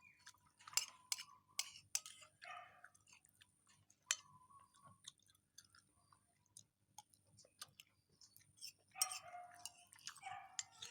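A person eating at close range: faint chewing and mouth sounds with many short scattered clicks.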